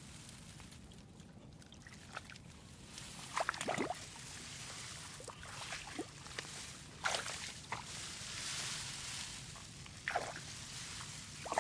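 Water sloshing and splashing in short bursts, about four times, over a low steady rumble.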